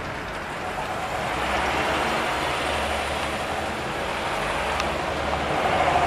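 Road traffic noise: the rumble of a passing motor vehicle swelling from about a second in and easing off near the end.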